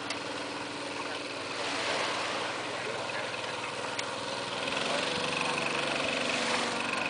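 A small wooden fishing boat's engine running steadily at a low, even drone over the wash of the beach.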